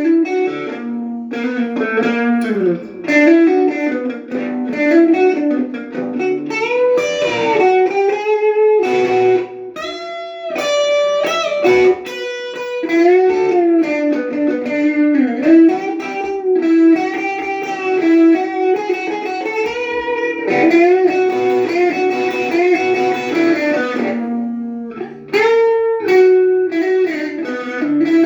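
Electric guitar played through a small Blackstar battery-powered portable practice amp, on its overdrive channel for a bluesy, rocky tone. The playing is improvised single-note lead lines with many string bends and a few chords, with a brief gap near the end.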